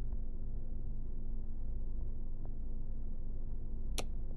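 Room tone: a steady low rumble with a faint steady hum, and one sharp click about four seconds in.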